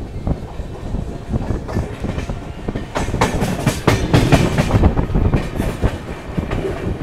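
Wheels of an Indian Railways sleeper-class passenger coach clacking and rattling over the rails as the train runs along, with a louder, busier run of clacks about three to five seconds in.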